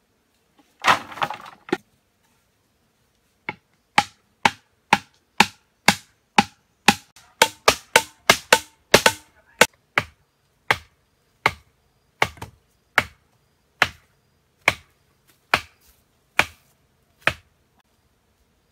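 A short rattling clatter about a second in, then a long run of sharp chopping strikes on bamboo, each with a hollow ring. The strikes come about two a second, crowd closer in the middle and slow to roughly one a second near the end.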